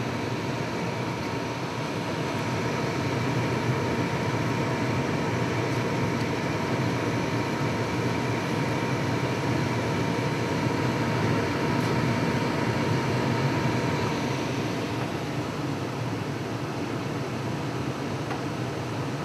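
Gas furnace firing on propane, its induced-draft (venter) motor and burner flames making a steady rushing noise. The burners are firing at low manifold pressure while the gas valve is turned up. A faint high tone stops about three-quarters of the way through.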